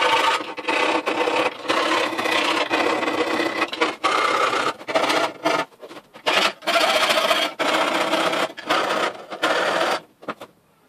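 Hand file rasping back and forth on the rough cut edge of a hole in a thin metal panel, deburring it. The strokes run almost without a break, with a few short pauses, and stop near the end.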